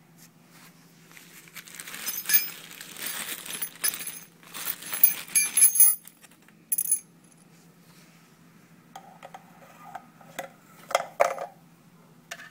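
Garbage disposal parts being handled: the plastic discharge tube and its metal flange give rustling, crinkling handling noise with several sharp clinks for a few seconds. Later come a few lighter knocks and clicks as the tube is fitted into the disposal's outlet.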